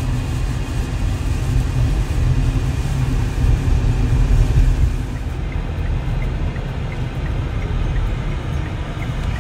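Car cabin noise while driving: a steady low rumble of road and engine under a hiss, with the higher hiss dropping away a little past halfway.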